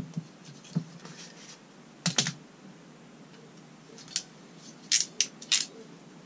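Scattered sharp clicks and taps from handling a thick power cable fitted with copper-pipe lugs and picking up a metal crimping tool, ending in a quick cluster of clicks.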